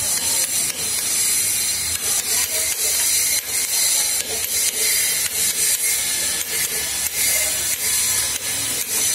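Hammer on a steel chisel chipping rough granite from a cylinder on a granite turning machine: repeated sharp strikes, irregular, about two or three a second, over a steady loud hiss.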